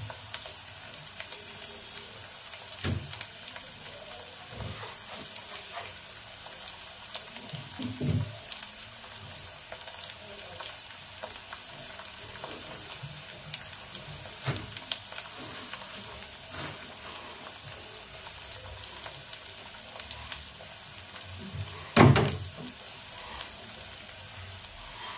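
Chopped tomato, carrot and curry leaves frying in oil in an iron kadhai on a gas stove: a steady sizzle with scattered crackles. A knock comes about 8 s in, and a much louder one near the end.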